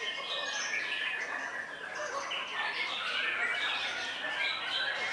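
Several white-rumped shamas singing at once: a dense, unbroken tangle of overlapping whistled phrases that rise and fall.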